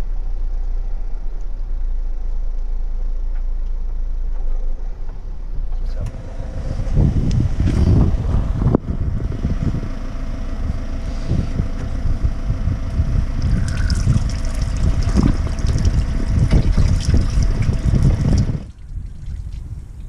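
Motorhome engine running low and steady, heard from inside the cab. About six seconds in, this gives way to a loud, uneven rushing noise beside the van's grey-water drain valve over the waste grate, which cuts off sharply near the end.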